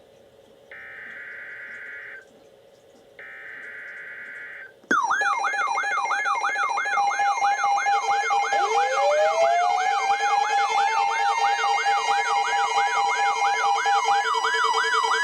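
Three short bursts of the SAME digital header, the buzzy two-tone data signal that NOAA Weather Radio sends at the start of an alert. These are followed about five seconds in by a weather radio's loud alert alarm: a fast warbling siren tone over a steady tone. A second tone slides slowly upward from about eight seconds.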